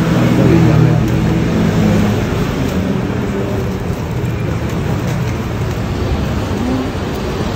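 Steady road-traffic noise, with a low engine hum that fades after the first two seconds.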